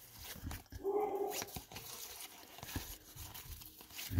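Baseball cards being slid and flipped in the hands, with scattered soft clicks of card stock. About a second in, a dog whines briefly, high-pitched.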